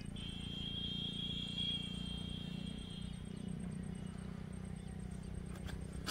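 A high, steady animal call lasting about three and a half seconds, fading out midway, over a low steady rumble.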